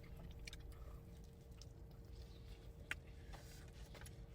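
Near silence: faint room tone with a low hum and a few faint ticks, one a little under three seconds in.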